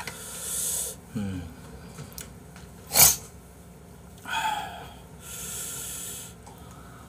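A man's noisy breaths, three or so hissing puffs, while he stuffs a leaf-wrapped bite of food into his mouth. A single sharp click about three seconds in is the loudest sound.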